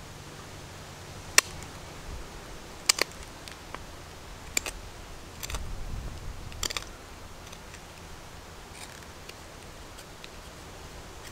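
Fixed-blade knife carving a green wooden stick: five or six sharp clicks as the blade bites and snaps through the wood, with a brief scraping stretch about halfway through.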